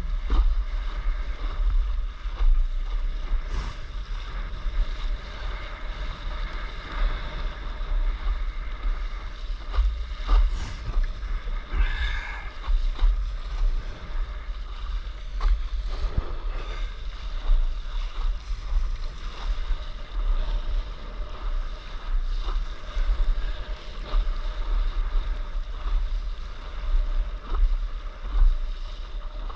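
Wind buffeting the microphone in uneven gusts, over the hiss and splash of water streaming past a windsurf board's hull as it sails across choppy sea.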